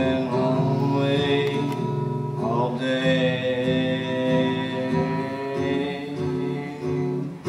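A man singing over his acoustic guitar.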